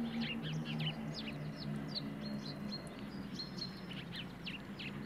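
Small songbirds chirping in quick, short, high calls, several a second, over soft background music with low held notes.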